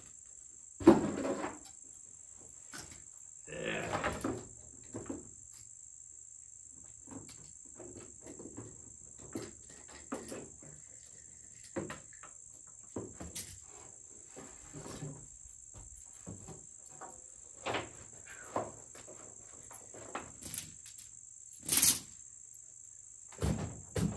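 Scattered knocks, clunks and clatter of objects being handled and moved around, the sharpest about a second in and again near the end, over a steady high-pitched trill of crickets.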